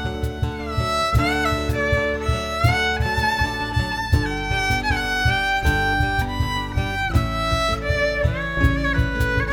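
Instrumental break on fiddle, playing the melody with sliding notes over steadily strummed acoustic guitar, in a country/folk style.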